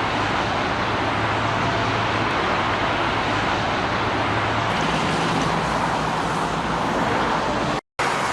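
Steady engine and road noise from heavy vehicles or machinery, with a low hum that shifts up in pitch about halfway through. The sound cuts out abruptly for a moment near the end.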